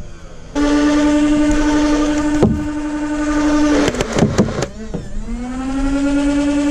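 Nerf Rival Nemesis blaster's motorized flywheels spinning up with a sudden steady whine. A shot comes about two and a half seconds in, then a quick burst of foam balls around four seconds in drags the motor pitch down. The flywheels then wind back up to a steady whine.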